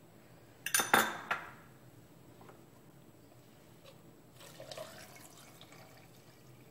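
A spoon clinks sharply a few times against glass and the plastic blender cup about a second in. Later, milk is poured from a glass jar into the blender cup over avocado pieces, a soft splashing pour for about two seconds.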